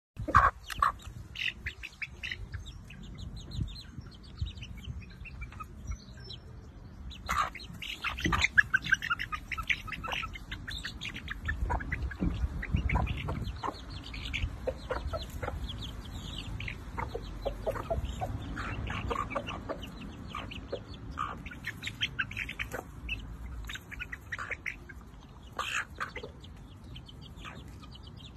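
Chickens clucking while young chicks peep in many short, high chirps as they feed.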